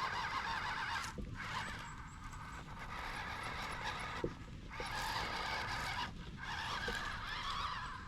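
MN82 RC crawler's small electric motor and gears whining in stretches of a second or two with short pauses between, as it drives in spurts, with a few faint knocks.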